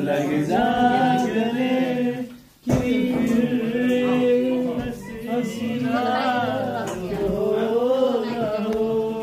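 Man singing to acoustic guitar accompaniment. The song breaks off briefly about two and a half seconds in, then carries on.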